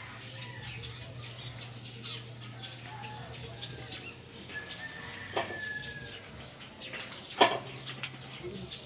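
Small birds chirping again and again over a steady low hum, with one long thin whistled note about halfway through. A few sharp clicks come near the end.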